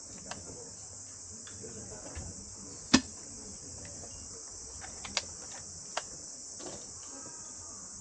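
Steady high-pitched insect chorus, with a few sharp clicks or knocks: the loudest about three seconds in, and smaller ones around five and six seconds.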